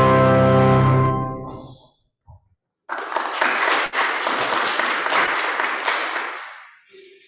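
A held organ chord is released about a second in and dies away in the room's echo. After a short silence, people clap for about three and a half seconds, and the clapping fades out near the end.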